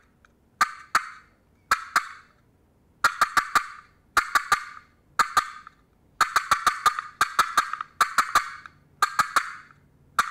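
A cut box, a handmade two-piece wooden friction turkey call, worked by hand to make loud, sharp hen-turkey clucks and cuts. The notes come singly at first, then in fast, uneven runs of three to six, a loud locating call meant to make a gobbler answer.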